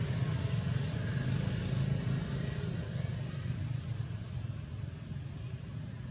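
Low, steady engine rumble of a motor vehicle running nearby, getting gradually quieter over the last few seconds.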